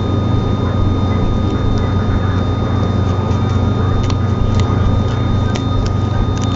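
Steady rain with scattered sharp drip ticks, heavy in the low end.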